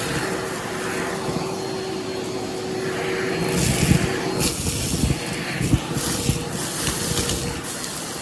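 Vacuum cleaner running with a dusting-brush attachment: a steady motor hum under the rush of suction, with the brush knocking and scraping over a surface. The motor's pitch steps up a little about halfway through.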